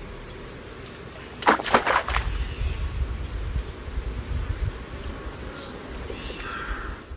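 Outdoor countryside ambience: insects buzzing over a low rumble, a brief burst of crackling about a second and a half in, and a short bird call near the end.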